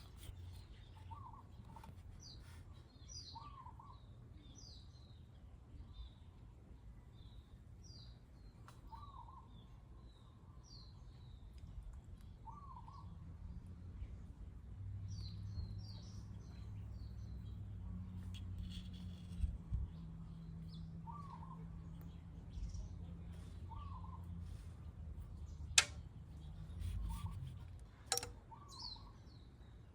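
Birds chirping: short, repeated chirps about every two seconds over a faint background. A low hum rises in the middle, and a few sharp clicks come near the end.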